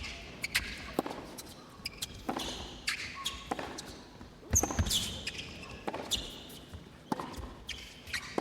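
Tennis rally in an indoor hall: sharp racket strokes and ball bounces about every half second to a second, with shoe squeaks as the players move around the court.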